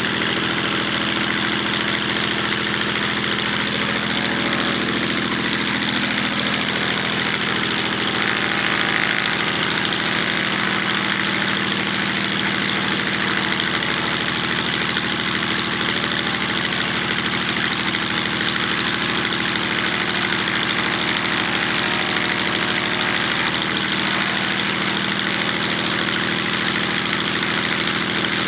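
Zlin Z-526F's inverted six-cylinder Walter M137A engine and propeller idling steadily on the ground during a pre-take-off engine check, with a slight swell about nine seconds in.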